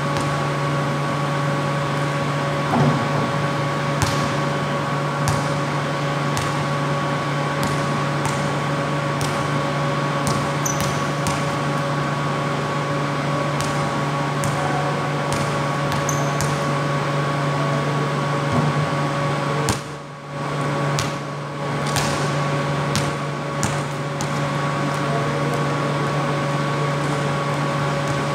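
A steady mechanical hum with a constant low tone and fainter higher tones, with scattered short knocks that fit a basketball bouncing on a concrete court.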